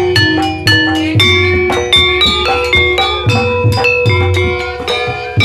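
Javanese gamelan playing ebeg dance music: struck, ringing pitched bars over a steady drum beat.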